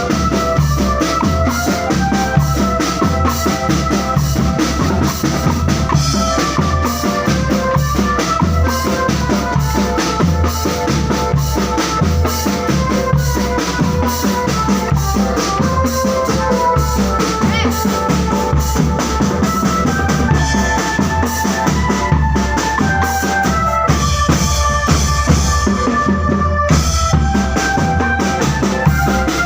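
Marching drum band playing: snare and bass drums beat a dense, steady rhythm under a sustained melody line.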